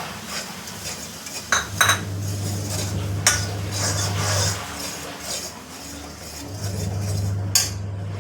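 A metal spoon stirring and scraping besan (gram flour) in hot ghee in a pan, with a few sharp clinks of the spoon against the pan. A steady low hum runs underneath.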